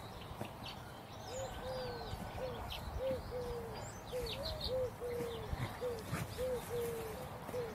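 Birds calling: a run of short, low cooing notes, about two a second, with faint higher chirps among them.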